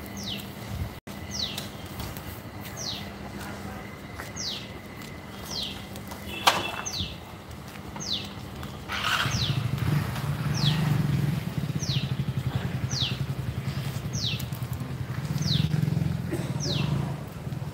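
A bird repeating a short high call that falls in pitch, about once a second. From about halfway, a motorcycle engine runs with a low, fast, even pulse and becomes the loudest sound.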